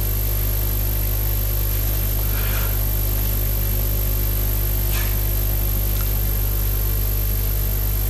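Steady electrical hum and hiss from the lectern microphone's sound system, with a low mains buzz underneath and a couple of faint brief noises about two and a half and five seconds in.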